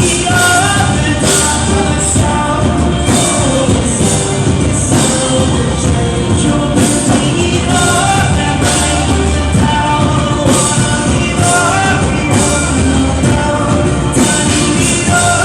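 Live band music played loud, with a steady drum beat whose cymbal hits fall about once a second and a melody line over it.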